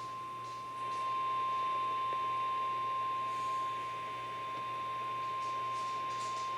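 Emergency alert tone: the National Weather Service's single 1050 Hz warning tone, one pure, steady whistle over faint hiss. It signals that a weather warning, here a severe thunderstorm warning, is about to be read.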